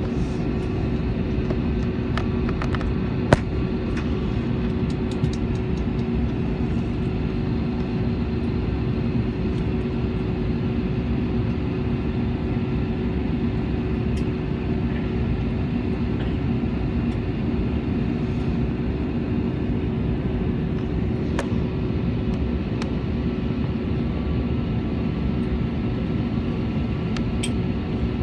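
Airbus airliner cabin noise after landing: a steady rush and low hum from the engines and air system, with a few faint clicks, one sharper about three seconds in.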